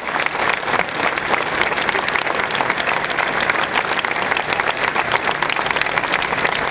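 A large crowd applauding steadily, with dense, even clapping and no break.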